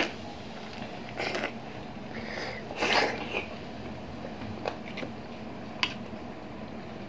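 Close-up mouth sounds of chewing balut, boiled fertilized duck egg: a few short bursts of chewing in the first half, then a couple of light clicks.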